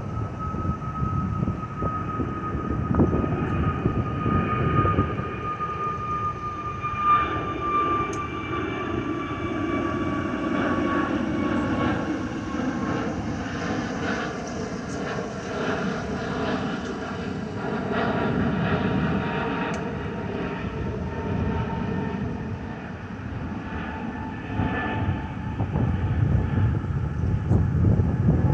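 Airbus A321neo's CFM LEAP-1A jet engines running, a low rumble under a high fan whine that slowly falls in pitch as the airliner passes.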